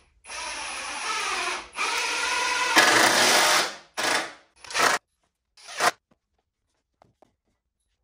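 Cordless drill driving a screw into a 2x4 cross brace: one long run of about three and a half seconds that gets louder in steps, then three short bursts as the screw is snugged down.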